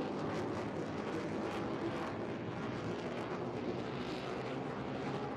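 F-22 Raptor's twin Pratt & Whitney F119 turbofan jet engines roaring steadily with a ragged crackle as the fighter banks overhead.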